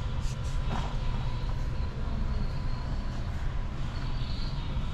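Steady low rumble of a large store's background noise, with a faint steady hum and a few light clicks and rattles.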